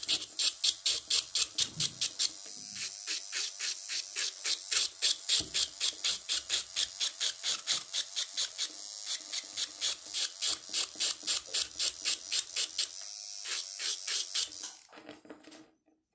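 Electric nail drill with a ceramic bit grinding the gel off a nail extension in quick repeated strokes, about three or four a second, over a faint steady motor whine; the grinding stops about fifteen seconds in. Nearly all of the old gel is being ground away for a maintenance.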